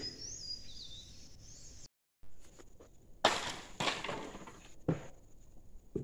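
Quiet outdoor ambience: faint bird chirps in the first second, then a few brief scuffs or crunches in the second half.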